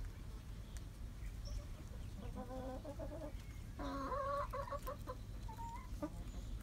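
Chickens clucking in two short bouts, about two and four seconds in, followed by a single shorter call near the end.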